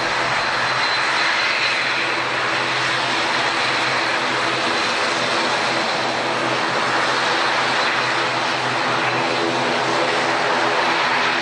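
Airliner's engines running steadily and loudly, a constant rush with a low steady hum and a faint high whine.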